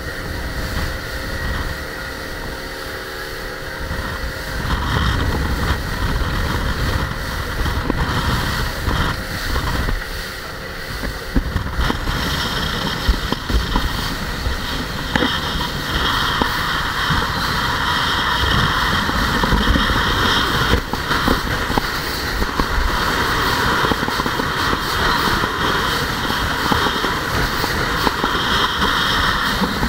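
Grady-White boat running at speed: a steady engine drone under the rush of water and wind along the hull, growing louder about twelve seconds in.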